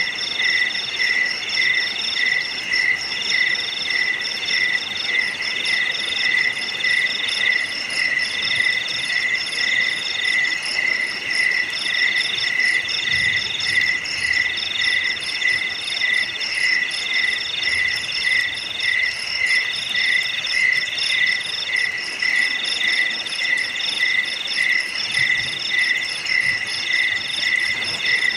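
A chorus of several insects calling together: one pulsing chirp repeating two or three times a second, with higher trills that come in stretches broken by short gaps and a fast, continuous high pulsing.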